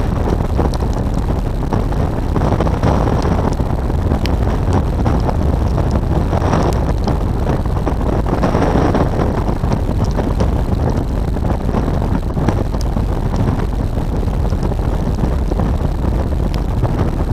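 BMW R1200 GS Adventure's boxer-twin engine running steadily under way, mixed with wind rushing over the microphone as a continuous low rumble.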